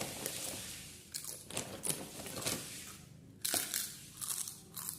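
Plastic snack packet crinkling and tearing as it is handled and opened, with some crisp crunching sounds.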